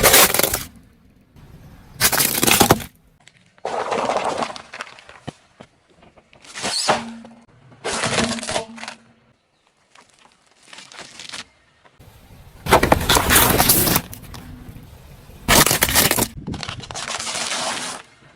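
Car tyre crushing crunchy objects: a series of about nine separate crunching, cracking crushes, each lasting around a second, with short quiet gaps between them.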